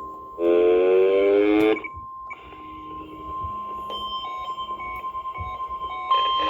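NOAA Weather Radio single-tone warning alarm, a steady high beep near 1 kHz, signalling an incoming weather alert. Over it a louder buzzy tone with a slight upward glide sounds for about a second and a half near the start, and fainter beeps stepping up and down in pitch follow.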